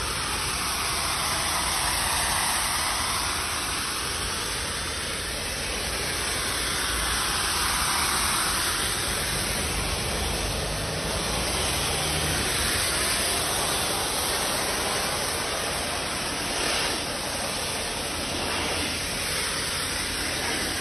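DOFF superheated-steam cleaner's lance jetting steam onto brickwork and paving: a steady hiss whose tone shifts slowly as the nozzle sweeps across the surface, over a low rumble.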